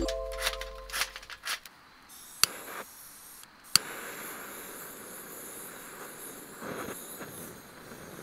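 Handheld gas torch: two sharp igniter clicks a little over a second apart, the second lighting a steady hissing flame that is held to kindling to start a campfire that would not catch by other means.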